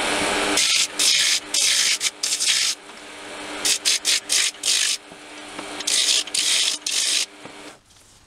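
Roughing gouge cutting a spinning pear-wood blank on a small wood lathe, the cuts coming in repeated bursts over the steady hum of the lathe motor; everything drops away shortly before the end as the lathe is stopped. The soft, loose wood chips away more than it is cleanly cut.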